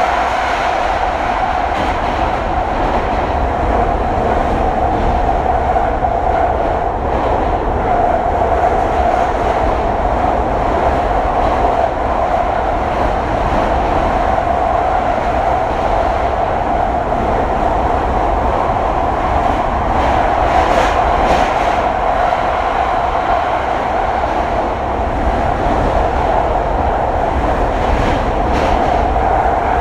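JR East E721-1000 series electric train running at speed through the Senzan Tunnel, heard from inside the car: a loud, steady running roar with a strong droning tone, the tunnel's well-known noise.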